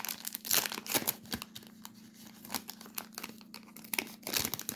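Foil wrapper of a trading-card pack being torn open and crinkled: an irregular run of sharp crackles and rustles.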